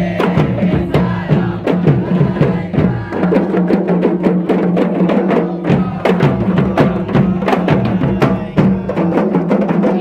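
Kompang, Malay hand frame drums, beaten by a group in a dense, fast rhythm of sharp strokes, over a steady low hum.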